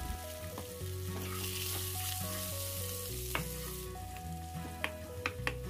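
Sliced onions sizzling in a frying pan as a spatula stirs them, with a few sharp clicks of the spatula against the pan in the second half.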